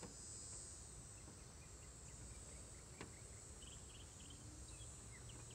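Faint, steady high-pitched insect chirring, with one light click about three seconds in.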